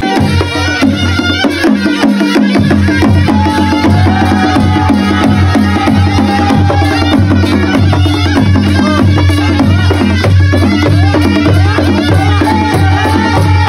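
Nepali panche baja band playing dance music: drums keep a steady beat under a wavering wind-instrument melody that comes in about three seconds in.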